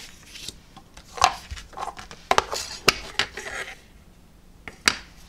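Plastic stamp ink pad cases being handled and opened on a craft mat: several sharp clicks and knocks of the hard plastic, with paper sliding and rustling in between.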